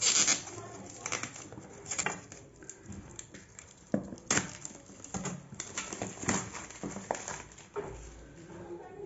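Packaging of a smart-speaker box being opened by hand: irregular rustling, scraping and light knocks as the box is torn and pulled apart.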